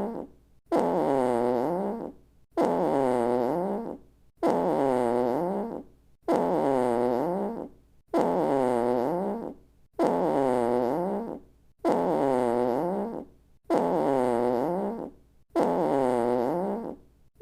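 A comic fart sound effect played in a loop: the same pitched fart repeats about every two seconds. Each one dips in pitch and then rises again before it cuts off.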